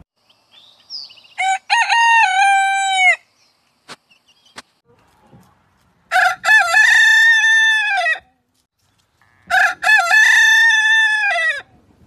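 Silkie roosters crowing three times, each crow about two seconds long, with a few seconds of quiet between them.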